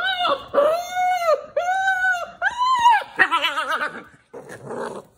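Belgian Malinois puppy whining: four high-pitched cries, each rising and falling, in quick succession, then a wavering cry a little after three seconds, followed by quieter sounds.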